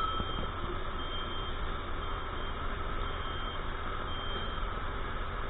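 Steady airport ramp machinery hum over a low rumble, with a faint high beep repeating about once a second, typical of ground support equipment working at a parked airliner.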